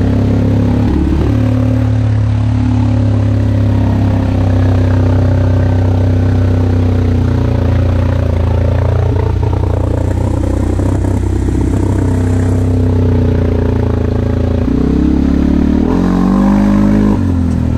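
CF Moto 450 ATV engine running steadily, its pitch rising and falling briefly near the end as the throttle is worked.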